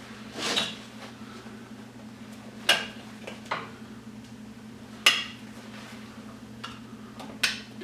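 Scattered sharp metallic clicks and clinks, about six, from small brass plug parts and hand tools being handled and cut, over a faint steady low hum.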